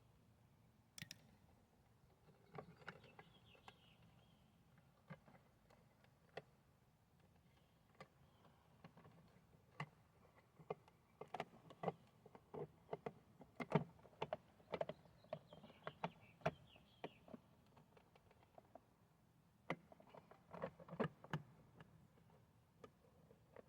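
Scattered light clicks and taps of hand work with tools and small parts, busiest in two stretches: a dense run through the middle and a shorter one near the end.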